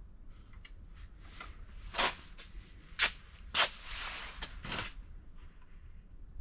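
Handling noise: a few sharp knocks and clicks, roughly a second apart, with a short rustle among them.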